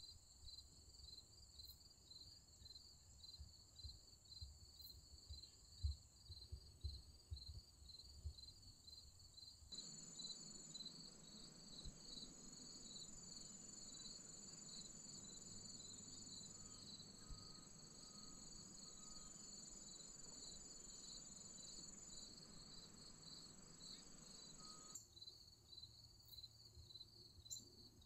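Faint chorus of insects, such as crickets: one chirps in a quick steady rhythm, another keeps up a continuous high trill. A soft background hiss comes up about ten seconds in and falls away again near the end.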